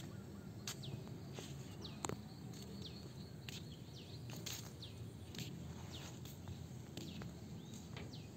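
Outdoor ambience with a bird repeating a short call that falls in pitch, about once a second, over a low steady rumble; a sharp tick stands out about two seconds in.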